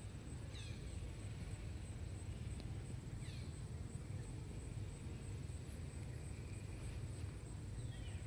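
Outdoor ambience: a steady low rumble with a faint, steady high whine, and three short falling chirps from an animal, about a second in, near the middle and near the end.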